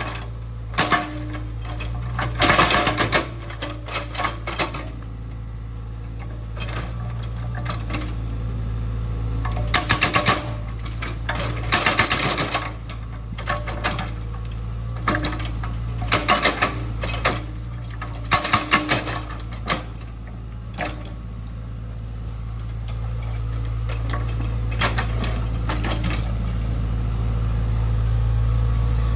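Excavator's diesel engine running with a steady low drone, broken by repeated short bursts of clanking and scraping from the machine at work; the engine grows louder over the last several seconds.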